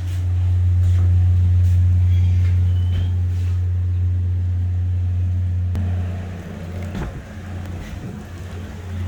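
Steady low hum of a car's engine running at idle, weakening and breaking up for a couple of seconds near the end.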